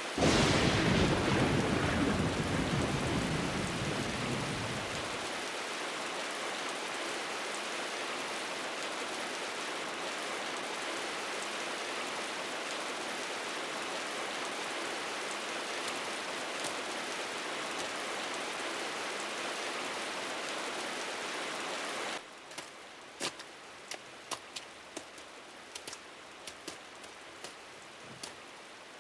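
A thunderclap with a low rumble that fades over the first five seconds, over steady heavy rain. About 22 seconds in, the rain cuts to a quieter hiss with scattered sharp taps.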